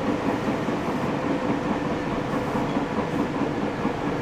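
Running noise inside the car of a Nagoya Municipal Subway 3050 series electric train under way, a steady rumble with fast wheel-on-rail clatter. The wheels have flat spots, which add a knocking to the running sound.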